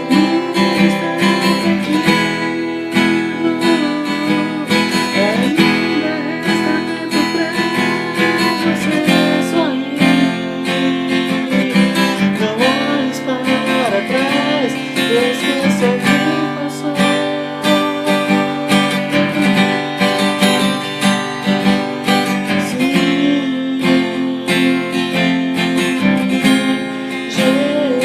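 Music: strummed acoustic guitar playing an instrumental passage of a song, with a melody line weaving above the chords.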